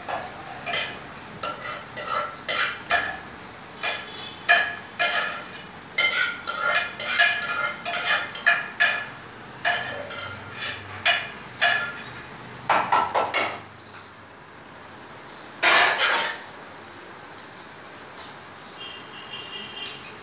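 A Lhasa Apso puppy feeding from a stainless steel bowl on a stone floor, its muzzle knocking and pushing the bowl: a quick, irregular run of metallic clinks, with two longer scrapes about two-thirds of the way through. The clinks thin out and grow fainter near the end.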